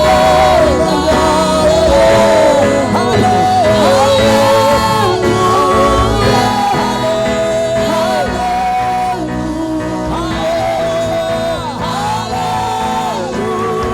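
Gospel worship song: a singing voice carries a melody with wavering vibrato over instrumental backing.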